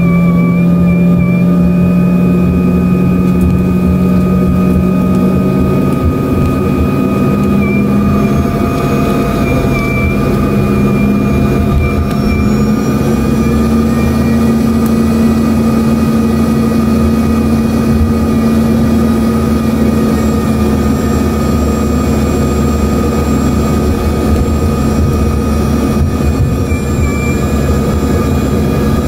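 Rolls-Royce AE 3007 turbofans of an Embraer ERJ-145, heard from inside the cabin: a steady jet whine with a hum underneath. The hum steps up in pitch about six seconds in and again around twelve seconds as the engines spool up, and a deeper rumble joins soon after.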